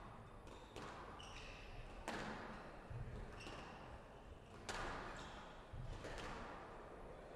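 Squash rally: sharp hits of the ball off rackets and the walls, about one every one to two seconds, with short high squeaks of court shoes on the wooden floor between them.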